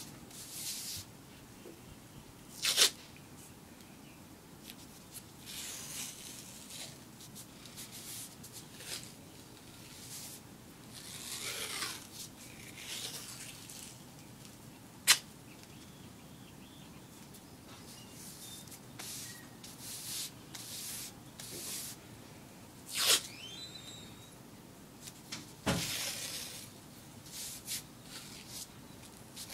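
White athletic tape being pulled off the roll, torn and smoothed onto an ankle: a string of short rasping rips, some sweeping in pitch, with a few sharp clicks.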